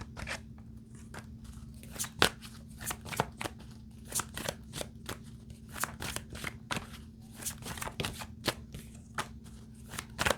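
A deck of tarot cards being shuffled by hand: a long run of irregular, crisp snaps and flicks over a low steady hum.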